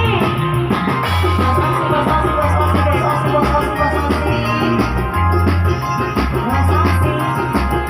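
Loud music with a heavy, repeating bass line, a steady drum beat and a sustained melody.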